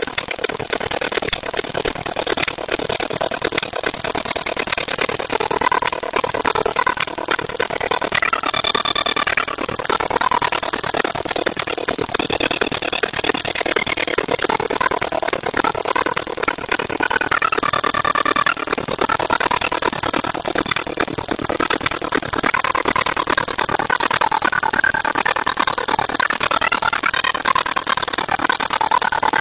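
Large crowd of spectators at an outdoor school race: a steady din of many voices, with individual shouts and calls rising out of it now and then, more of them toward the end.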